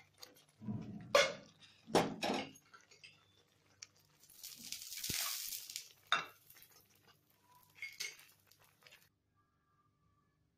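Metal spoon clinking and scraping against a steel pan as paneer cubes are pushed off a plate and stirred into thick gravy, with a few sharp clinks and a stretch of hissing in the middle. The sounds stop about a second before the end.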